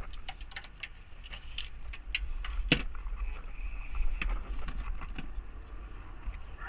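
Scattered light metal clicks and clinks of hand tools and parts being handled in a car's engine bay, with one louder knock near the middle, over a steady low rumble.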